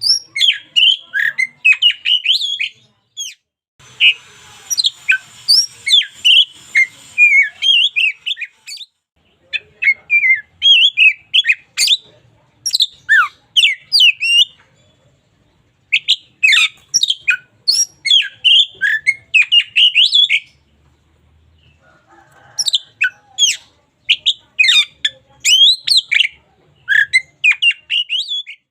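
Oriental magpie-robin singing: fast runs of varied whistles and chirps, delivered in phrases several seconds long with short pauses between them.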